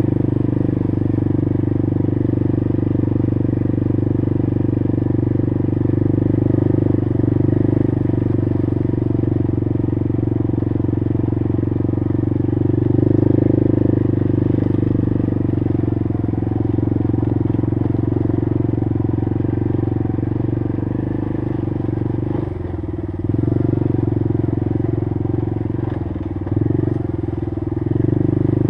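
Honda TRX90 ATV's small single-cylinder four-stroke engine running steadily as it is ridden along, then easing off and picking up again several times in the last third.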